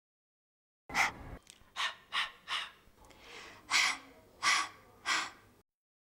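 A voice saying the pure phonics sound "h" over and over, each one a short breathy puff of air with no vowel after it; about seven puffs in all.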